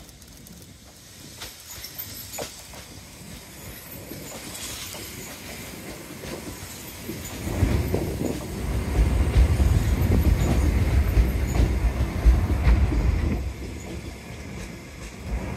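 Sotetsu Moya 700 series yellow electric maintenance train approaching, then passing close by from about halfway, its wheels rumbling loudly on the rails.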